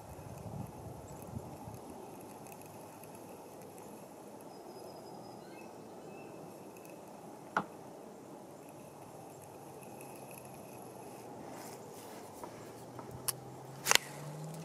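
Quiet outdoor lake ambience: a steady low hiss with faint, thin distant bird or insect calls. Three sharp knocks break it, one about halfway and two close together near the end, the last the loudest.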